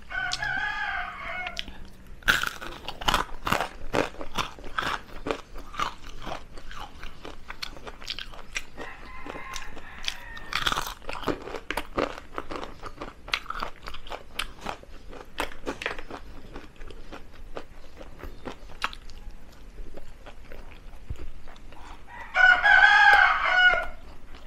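Crunching and chewing of deep-fried chicken feet, eaten bones and all close to the microphone, with many sharp crunches. A rooster crows in the background as it begins and again near the end.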